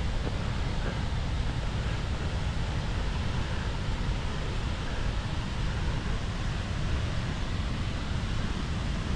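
Steady rushing noise of a mountain waterfall, heaviest in the low end.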